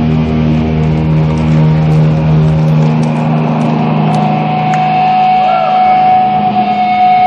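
Distorted electric guitars of a live rock band holding a final chord. The low end drops out a little under three seconds in, and a high, steady whine joins about four seconds in before the sound cuts off abruptly.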